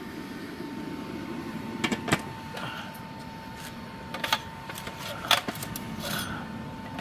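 Homemade metal-casting furnace burner running steadily, a constant rushing noise with a steady tone above it, as the furnace heats up. A few sharp clicks and knocks come about two seconds in and again around four and five seconds in.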